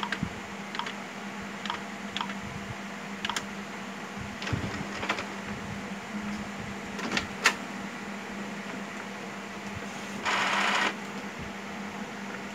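Epson L565 inkjet printer's mechanism clicking irregularly, with a half-second whirr about ten seconds in, over a steady low hum.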